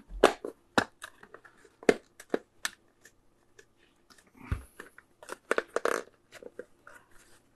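Plastic case of a Commodore 64 power supply being handled and its cover pressed on to test the fit: a run of irregular sharp plastic clicks and knocks, with a few louder ones spread through.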